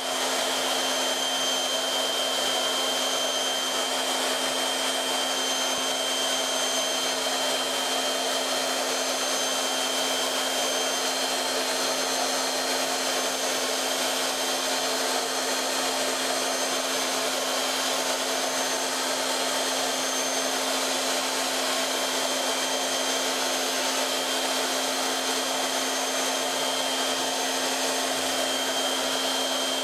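CNC milling machine spindle running steadily while its end mill cuts a pocket into a block of foam: an even whir with a low hum and a high whine held at one pitch.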